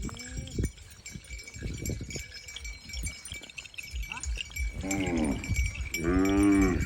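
Cattle mooing: two calls in quick succession in the second half, the second longer and louder.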